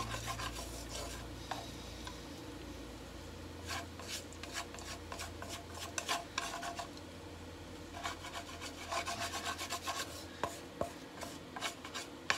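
Scraping stir-fried pork and cabbage that has stuck to a frying pan out into a bowl, in several runs of quick, rasping scrapes over a steady low hum.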